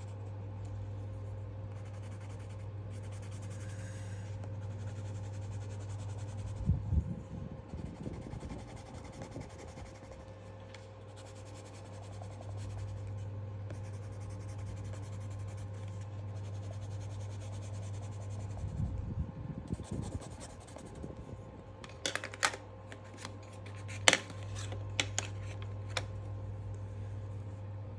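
Coloured pencil scratching and rubbing on sketchbook paper as it shades, over a steady low hum. A few dull bumps partway through, then a run of sharp clicks near the end.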